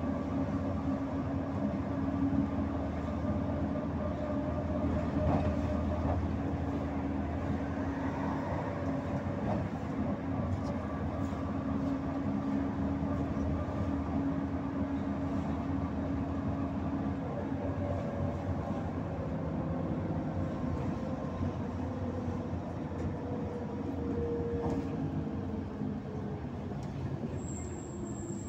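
Volgabus-5270.GH city bus heard from inside the passenger cabin while driving: a steady drivetrain hum and whine over road noise. The whine falls in pitch over the last few seconds as the bus slows.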